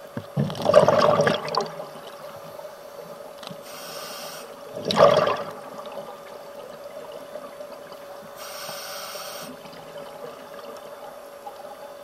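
A scuba diver breathing through a regulator underwater: two loud gushes of exhaled bubbles, about a second in and about five seconds in, alternate with the thinner hiss of two inhalations, all over a steady faint hum.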